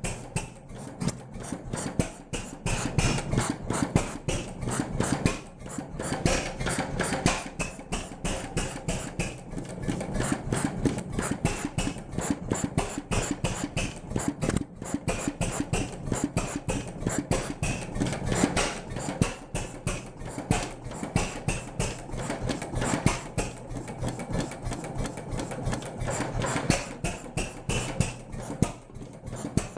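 Cérès M1K series 2 stationary engine from about 1924, a 6 hp vertical single-cylinder, running with a rapid, regular mechanical clatter over a steady low hum.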